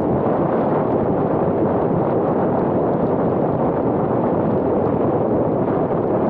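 Steady rush of wind buffeting the microphone, mixed with tyre and road noise from a car driving at speed on a highway.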